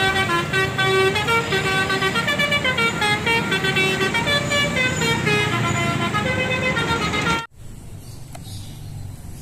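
Tour bus's 'telolet' multi-tone musical air horn playing a melody of stepping notes over low street-traffic rumble. It cuts off suddenly about seven and a half seconds in.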